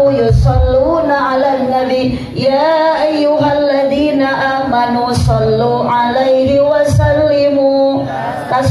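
A woman singing a slow melody with long held, wavering notes, over an instrumental backing with low bass notes and a few sharp percussion strikes.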